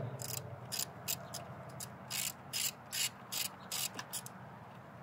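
Socket ratchet clicking in short runs, about two to three a second, as the nut on the battery's positive terminal is loosened to disconnect the battery; the clicking stops a little after four seconds in.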